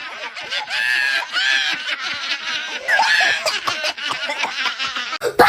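High-pitched giggling and snickering in short repeated bursts, with a sharp click near the end.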